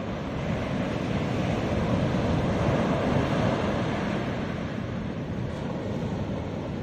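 Ocean surf breaking and washing up a sandy beach. The wash swells to its loudest around the middle and then eases off.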